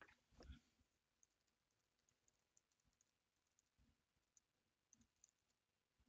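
Faint computer-keyboard typing: scattered light key clicks, irregular and spaced out, after a soft thump about half a second in.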